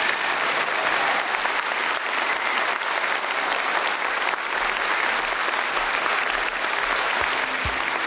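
A large audience applauding steadily at the close of a talk. Near the end, music with a low beat starts to come in.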